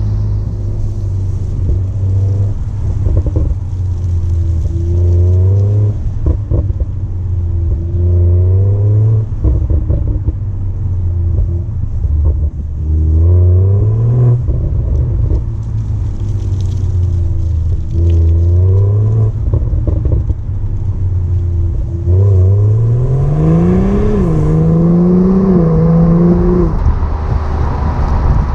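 2020 BMW X3 M40i's 3.0-litre turbocharged straight-six, through its stock exhaust with petrol particulate filter, revving up and dropping back again and again, the revs kept below 3,500 rpm for running-in. Its pitch climbs highest in a longer rise about three-quarters of the way through.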